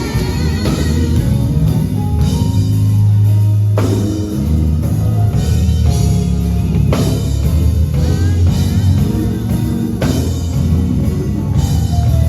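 Live gospel band playing an instrumental passage on drum kit and guitar, with a heavy low end and the chords changing every second or two.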